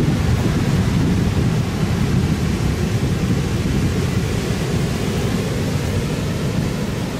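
Rough surf stirred up by an approaching typhoon, mixed with strong wind blowing on the microphone: a steady, heavy low rumble that eases slightly toward the end.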